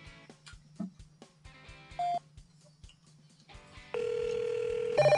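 Faint background music with a steady beat, a short beep about two seconds in, then a steady telephone-like tone from about four seconds, and a loud trilling telephone ring cutting in near the end.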